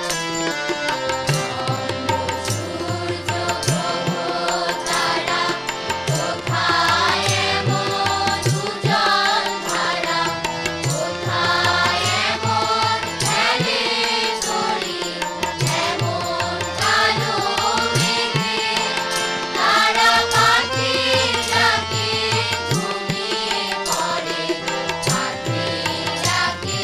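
A school choir singing together, accompanied by tabla and harmonium, with regular tabla strokes under the voices. The singing comes in strongly about five seconds in.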